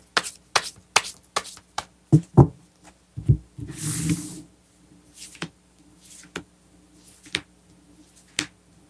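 Tarot cards being handled and spread out in a fan across a cloth-covered table: quick light clicks of the cards, a few soft thumps about two to three seconds in, and a short swish as the deck slides across the cloth about four seconds in, followed by fainter scattered clicks.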